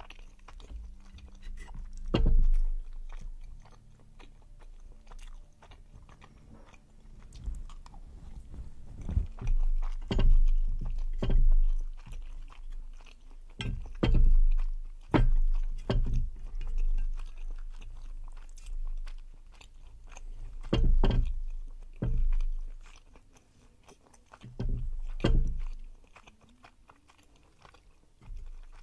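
Close-miked chewing and wet mouth sounds of someone eating spicy tteokbokki with rice, in irregular bursts, some of them loud.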